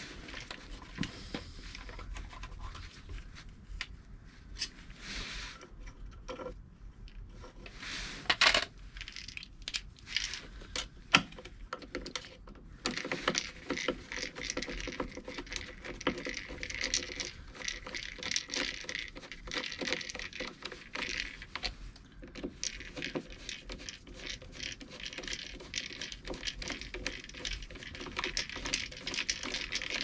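Metal tools and scooter parts clinking, knocking and scraping during hands-on work, with a sharper knock about eight seconds in. After about thirteen seconds it turns into a dense run of small rapid clicks and rattles.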